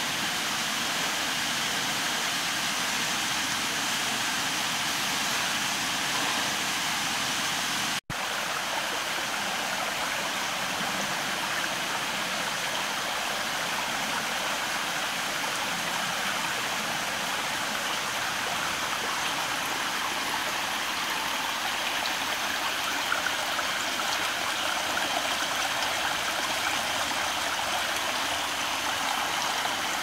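Small rocky forest stream running steadily, a continuous rushing of shallow water over stones. The sound cuts out for an instant about eight seconds in.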